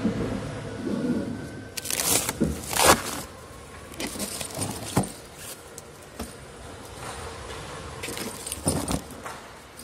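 Shrink-wrapped plastic water bottles crinkling and rustling in several short bursts, the loudest about three seconds in.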